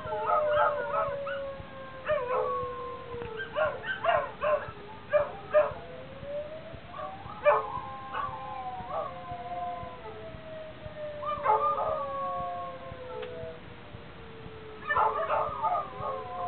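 A tsunami warning siren wails with long, slow falls and rises in pitch. Dogs howl and yelp along with it in bursts every few seconds, most densely about four seconds in and again near the end.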